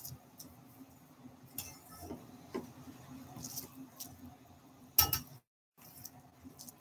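Faint clicks and taps of wooden chopsticks against a ceramic bowl as ramen noodles are stirred and lifted in soup, with one louder clatter about five seconds in.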